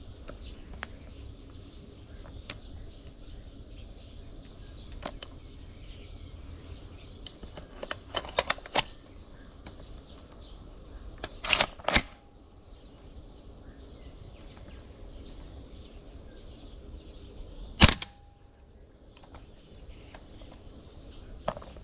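Gas blowback airsoft M4A1 CQBR rifle firing, each shot a sharp crack. There is a group of quieter shots about eight seconds in, a quick string of three or four about eleven to twelve seconds in, and one loud single shot near eighteen seconds, over faint outdoor background noise.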